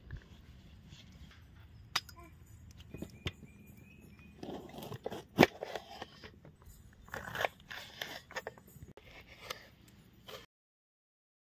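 A knife cutting vegetables on a chopping board: irregular sharp knocks with short scraping strokes between them, the loudest knock about halfway through. The sound cuts off abruptly near the end.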